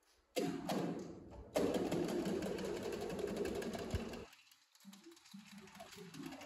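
Tenor saxophone playing a rough, rattling, buzzy tone, an extended technique, that starts suddenly, breaks off briefly about a second and a half in and then holds until about four seconds in. It is followed by several short, soft, detached low notes.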